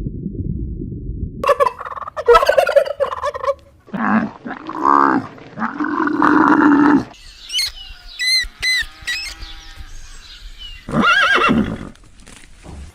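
A run of different animal calls one after another. It opens with a low rumbling noise, then come several pitched calls, a stretch of high chirping calls past the middle, and one more call near the end.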